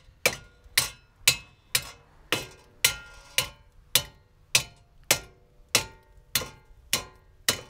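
A 5-pound sledgehammer striking a steel brake dust shield on a wheel hub, in a steady run of about two metallic blows a second, each with a short ring. The shield is being beaten flat so the caliper bracket will sit flush.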